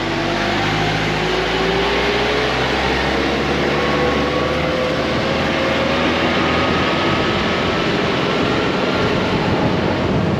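A motor vehicle under way: steady engine and road noise, with a whine that rises slowly in pitch over the first several seconds as it speeds up.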